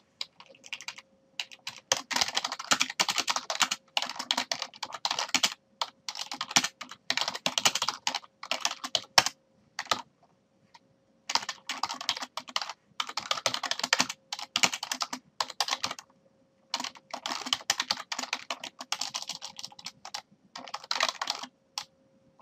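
Typing on a computer keyboard in quick runs of keystrokes, with short pauses between runs, over a faint steady hum.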